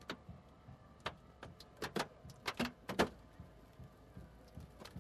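A run of about eight sharp cracks and snaps, bunched between one and three seconds in, as a car body is forced apart with a hydraulic rescue tool. A faint steady hum sits underneath.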